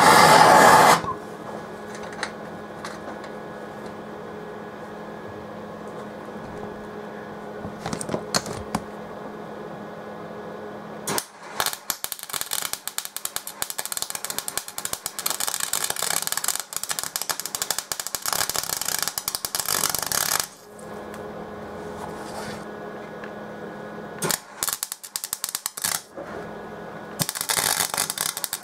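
A loud hiss from the flame warming the metal cuts off about a second in, leaving a low steady hum. From about eleven seconds a MIG welder's arc crackles and spits rapidly, stops near twenty seconds, then crackles again in two shorter runs near the end.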